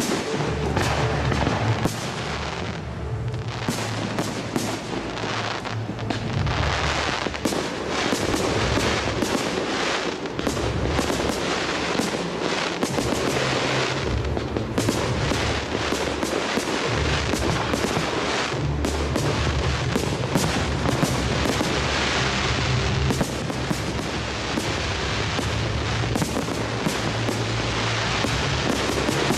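Large fireworks display: aerial shells bursting in rapid, almost continuous bangs and crackling, with music playing underneath.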